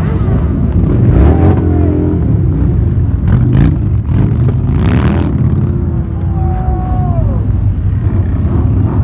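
Many motorcycle engines running together at low speed in a slow procession: a deep, steady rumble with engines revving up and down and a few short surges of throttle.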